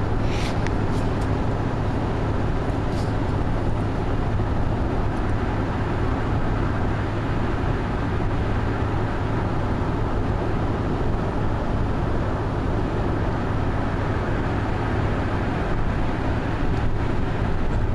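Steady road and engine noise inside a car cruising at highway speed, with a constant low hum under the tyre rumble.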